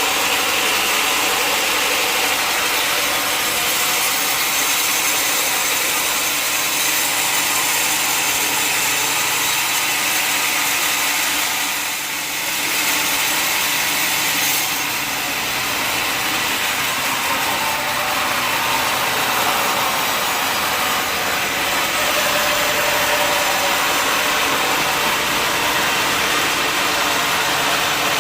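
Sawmill saw cutting through a log with the machinery running, steady and loud, easing briefly about halfway through.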